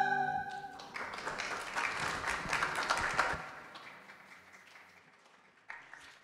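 A singer's final held note with vibrato ends the song, then a congregation claps for a few seconds and the applause dies away.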